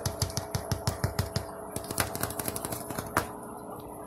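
A grey squirrel's claws clicking on a hard laminate floor as it scampers about: a quick run of ticks that thins out after about a second and a half, with one sharper click about three seconds in. A faint steady hum sits underneath.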